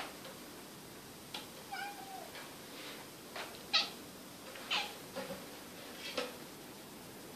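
Domestic cat giving one short meow about two seconds in, with a few sharp clicks around it, the loudest a little before four seconds in.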